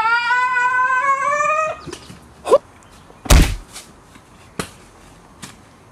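A child's long held yell, rising slightly in pitch, for nearly two seconds, then a loud thud about three seconds in followed by a few faint knocks.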